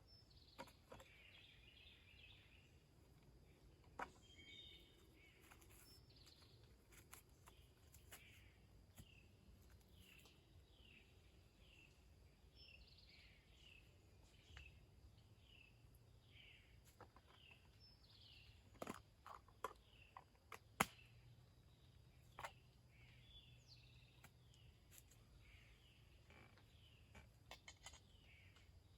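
Faint birdsong in woodland: a bird repeating short, falling chirps about once a second, with a few sharp clicks in the middle stretch.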